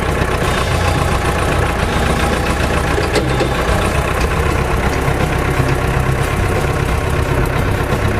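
Diesel engine of a Balkancar DV-1792 micro forklift idling steadily.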